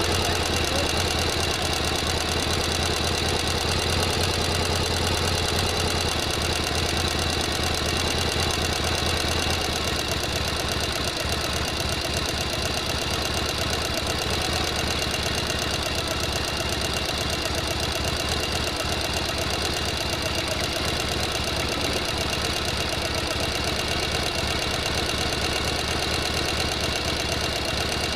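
Sewing machine running continuously, its needle and motor stitching in a fast, even rhythm. The low hum lightens slightly after about ten seconds.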